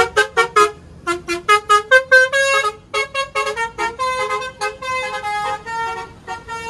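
A toy city bus's electronic sound chip plays a quick run of short, buzzy horn-like beeps, about four or five a second, that step up and down in pitch like a little tune.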